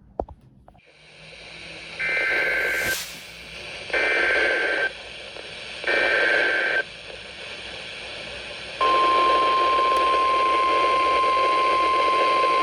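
NOAA Weather Radio emergency alert coming through a receiver over radio hiss. There are three bursts of SAME digital header tones, each about a second long and about two seconds apart. About nine seconds in, the steady 1050 Hz warning alert tone starts, which announces that a weather warning is about to be read.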